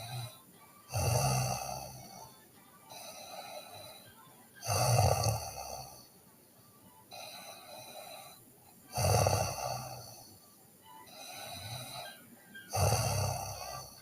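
A sleeping teenage girl snoring. There are four loud rasping snores about four seconds apart, each with a low buzz, and softer breaths between them.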